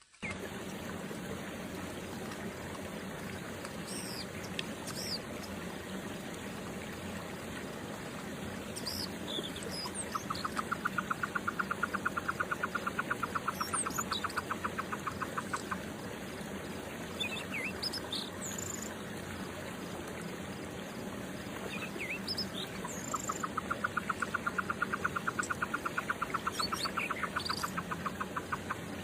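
Short, high bird chirps scattered over a steady background hiss. Twice, a rapid pulsing trill runs for about five seconds.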